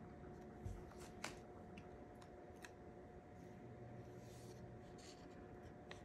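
Near silence: faint handling of paper sticker sheets, with a few soft scattered ticks over a faint steady hum.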